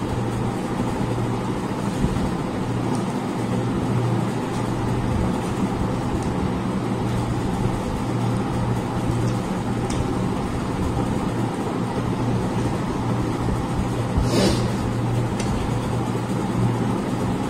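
A steady droning background hum runs throughout. A few light clicks and one brief clatter about 14 seconds in come from hands and bangles on steel plates while eating.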